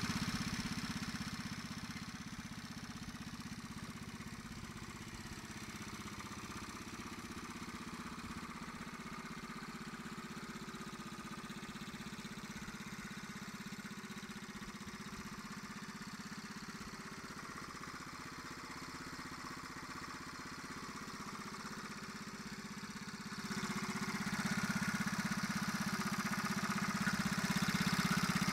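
Honda Monkey Z50M's small single-cylinder four-stroke engine idling steadily. About 23 seconds in it grows clearly louder and stays that way.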